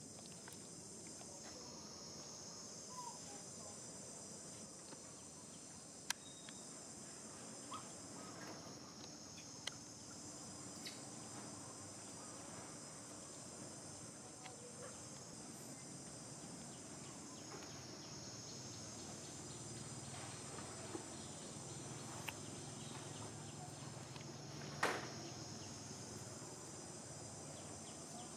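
A steady, high-pitched insect chorus that swells and dips every several seconds, with a few faint clicks and a short sharp sound near the end.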